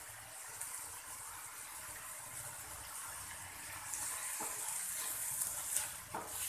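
Onion-tomato masala with ginger-garlic paste sizzling in oil in a kadai, a steady frying hiss that grows louder about four seconds in as it is stirred. A wooden spatula scrapes and knocks against the pan a few times near the end.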